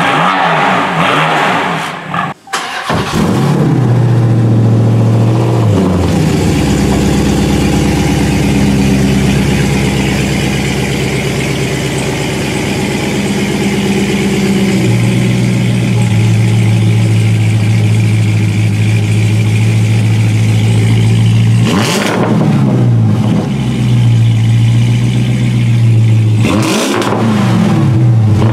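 A BMW M4's twin-turbo straight-six revving briefly, then a Dodge Challenger SRT's V8 running at a steady, deep idle, blipped up in revs twice near the end.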